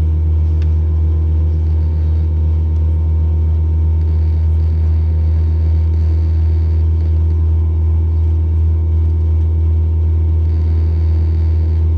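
Airbus A320neo cabin noise during taxi: the engines at idle make a steady, loud low rumble with a few steady hum tones above it, heard from inside the cabin.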